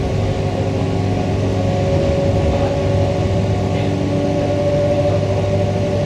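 Queensland Rail EMU electric train running, heard from inside the carriage: a steady hum and motor whine over wheel-on-rail rolling noise, the whine rising slightly in pitch midway.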